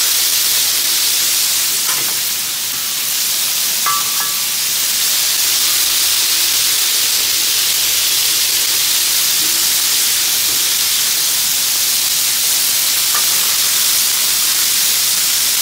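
Plaice fillets sizzling steadily in hot fat on a flat-top griddle, with a few short clicks of a metal spatula on the griddle as pieces are turned.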